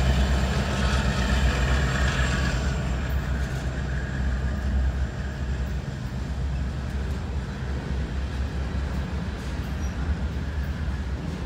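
Norfolk Southern diesel locomotives passing close by, their heavy low engine rumble easing over the first few seconds as they move away, then the steady rumble of double-stack intermodal container cars rolling past.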